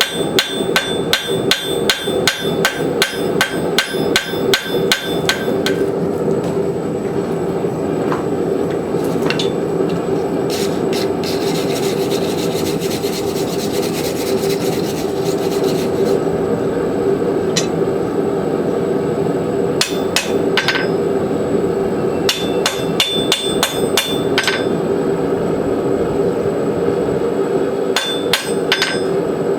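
Forging hammer striking a hot steel rasp on an anvil, drawing out a taper for a scarf joint. It starts as a quick, steady run of ringing blows for about five seconds. After that a steady hum carries on beneath a flurry of lighter strikes and a few scattered single blows.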